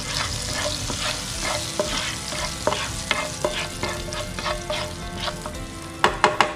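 Butter with ground cinnamon sizzling in a nonstick frying pan while a plastic spatula stirs and scrapes through it, with a few sharp knocks near the end.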